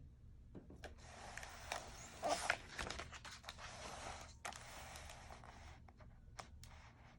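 Faint rustling with scattered small clicks, like paper or a page being handled, with a slightly louder crackle about two and a half seconds in; it fades out about six seconds in.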